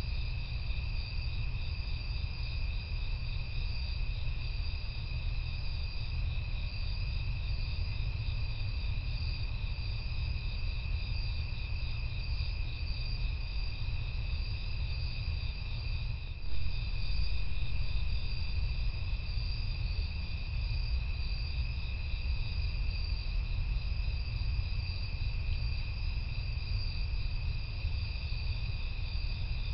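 Night-time chorus of crickets and other insects: several steady trills at different pitches, the highest one pulsing, over a steady low rumble. About halfway through there is a short bump, and the rumble is louder for a few seconds after it.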